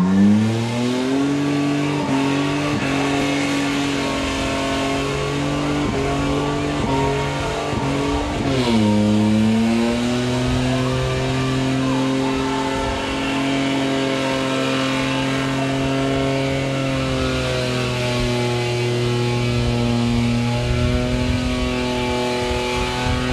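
Holden VN/VP Commodore engine revving up and held at high revs in a burnout, its rear tyres spinning. The revs drop briefly about eight and a half seconds in, then climb and hold high again.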